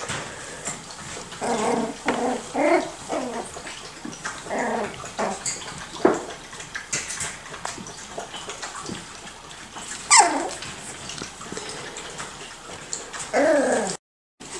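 Miniature schnauzer puppies play-fighting, giving a string of short yips and whines. About ten seconds in comes one loud yelp that falls steeply in pitch, and there is another short cry near the end.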